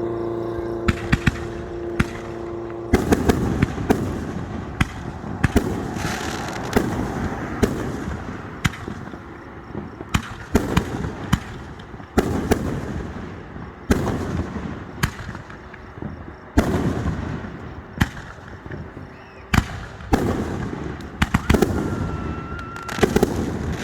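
Fireworks display: a steady run of sharp bangs, several a second at times, with rumbling booms between them. A steady droning tone underneath stops about three seconds in.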